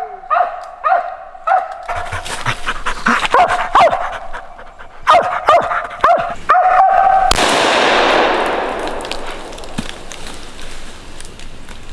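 A squirrel dog barking treed at the foot of a tree, a sign that it has a squirrel up the tree. It starts with quick barks about twice a second, grows more ragged, and lets out one long drawn-out bark about six and a half seconds in. Just after that, a loud rushing noise cuts in and slowly fades.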